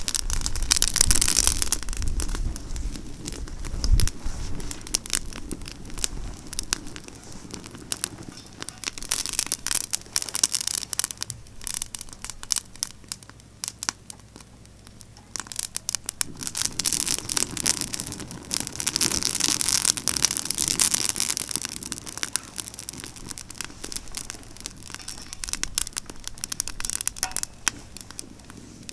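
Pine-branch campfire burning, crackling with dense sharp pops and a hiss that swells and fades in waves. A low rumble of wind gusting on the microphone in the first few seconds.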